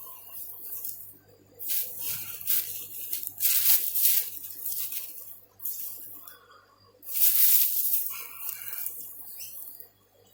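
Soil and potato plants rustling and scraping as potatoes are dug up by hand in a raised bed, in irregular bursts with two louder spells, one a few seconds in and one near the end.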